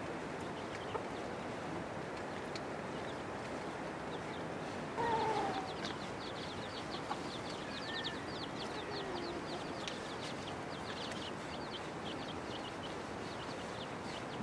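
A hen calling: one louder falling cluck about five seconds in, then a couple of softer calls, over a steady hiss. A fast run of faint high ticking chirps goes on through the middle.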